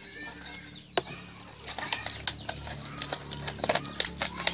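Chickens and other birds calling close by, with a run of sharp clicks and taps from about a second and a half in.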